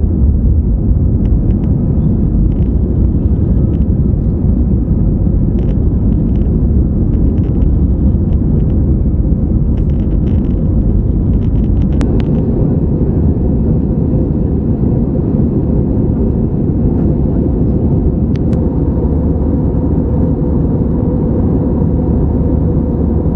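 Jet airliner heard from inside the cabin: steady engine noise over a heavy low rumble, with light rattles in the first half. About twelve seconds in there is a sharp click, after which the deepest rumble eases while the engine hum carries on.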